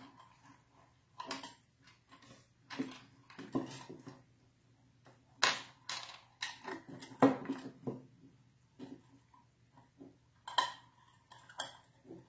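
Metal diamond jig bar and its hooks knocking and clinking on a wooden desktop as they are handled, in irregular light taps, a few of them with a short ring.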